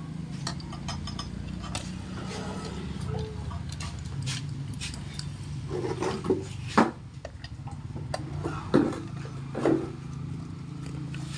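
Small metallic clinks and ticks of hand tools and bolts being worked on a motorcycle engine's crankcase, with three louder knocks in the second half, over a steady low hum.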